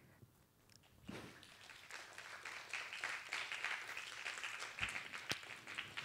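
Faint audience applause: a dense patter of hand claps that starts about a second in, holds for a few seconds and thins out near the end, with one sharp click a little after five seconds.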